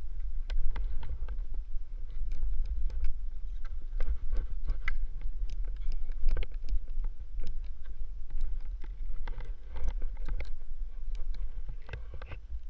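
Snowboard sliding and scraping over snow, with scattered sharp scrapes over a heavy, steady wind rumble on the microphone.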